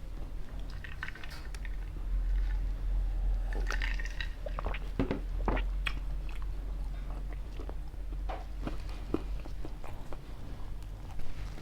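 Pizza being bitten and chewed close to the microphone: crunching of the crust and mouth sounds coming irregularly, over a steady low hum.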